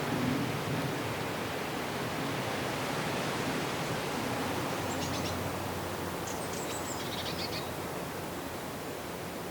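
Steady wind blowing outdoors. A small bird gives a few brief high chirps about five to seven seconds in.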